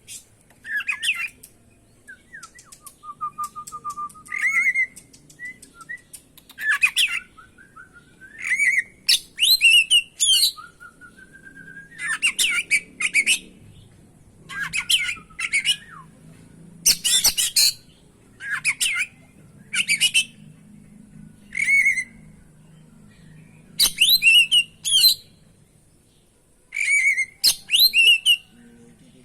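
Oriental magpie-robin (kacer) singing a long, varied song in short phrases a second or two apart, mixing clear whistled notes with harsh, scratchy chattering. There is a held low whistle a few seconds in.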